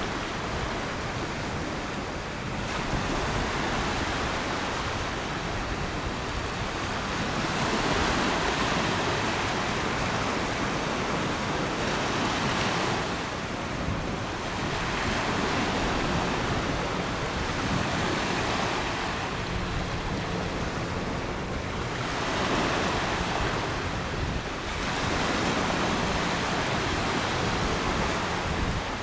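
Wind and river waves: an even rushing noise that swells and eases every few seconds, with wind buffeting the microphone.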